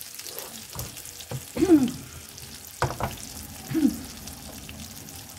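Steady sizzle of food frying on an electric stove, with a wooden spoon stirring scrambled eggs in a stainless-steel saucepan. A couple of sharp knocks and a few short squeaky scrapes of the spoon against the pan stand out.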